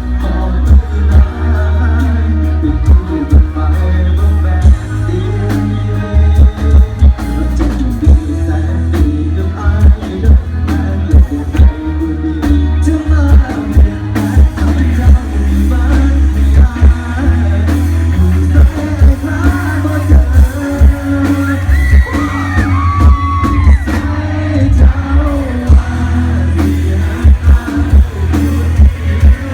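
Live Thai rot hae sound-truck band playing through a big sound system: a heavy booming bass and dense drum beats under a singer's voice.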